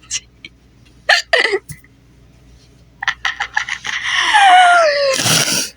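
A person's hiccups: two short, sharp hiccups about a second in, then a string of short catches and a long voice sliding down in pitch, ending in a loud breathy burst near the end.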